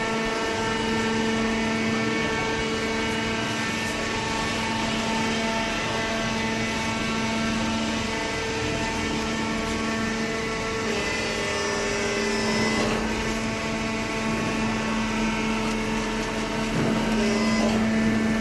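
Hydraulic baling press running, its electric motor and hydraulic pump giving a steady hum. The sound shifts a little about eleven seconds in and grows slightly louder near the end.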